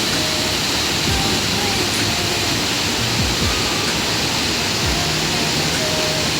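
Rushing water of a fast mountain stream, a steady, unbroken roar. A few faint, short whistle-like notes sound now and then above it.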